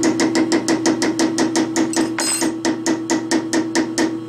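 Rapid metal-on-metal tapping, about six blows a second, with a ringing note under it: a hand-held steel slug striking the chrome-moly tube friction-welded in the lathe chuck, knocking on it to test whether the weld holds.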